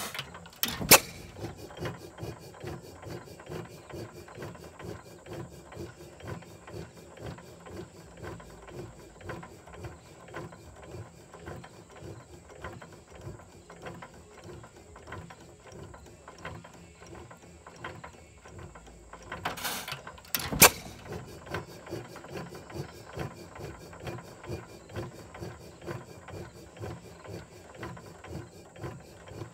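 6 hp Associated hit-and-miss engine running light. Its valve gear and governor click steadily as the flywheels coast, and it fires with a sharp bang about a second in and again about twenty seconds in.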